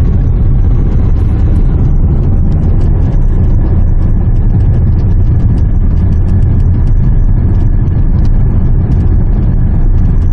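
Steady low rumble of road and engine noise inside the cabin of a 2008 Renault Samsung QM5 cruising at highway speed.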